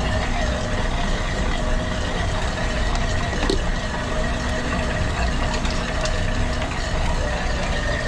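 Steady hum of running commercial refrigeration machinery, with a few faint clicks as wiring is handled.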